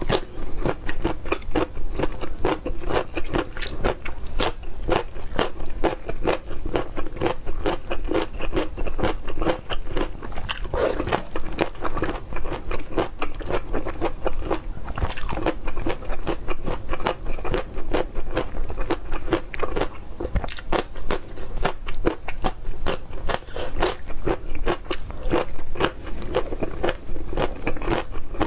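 Close-miked eating sounds: crunchy bites and chewing, a dense run of quick crisp clicks that carries on without a break.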